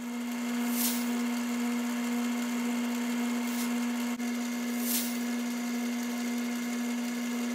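Metal lathe running at steady speed with a wheel spinning in its chuck: a constant motor hum over a light hiss, with two brief swishes about a second in and near five seconds in.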